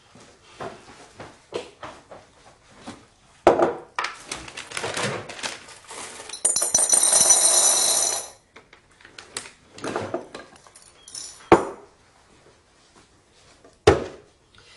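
Kitchen clatter of dishes and utensils being handled, with several sharp knocks. In the middle there are about two seconds of a steady, dense hissing noise.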